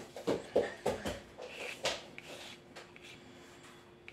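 Pencil drawing on kraft card: several short scratchy strokes and light taps in the first two seconds, then fainter.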